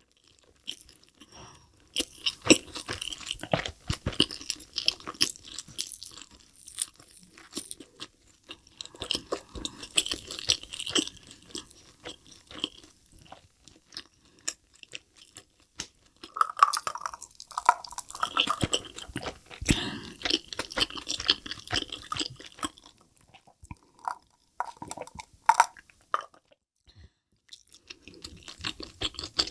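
Close-miked chewing of a big mouthful of burger: wet, crackly chewing in several spells with short pauses between them.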